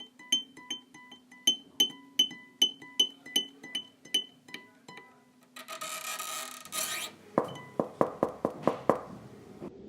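Music of short, ringing plucked notes at an even pace of about two and a half a second, broken by about a second of hiss, then a quick run of about six notes near the end.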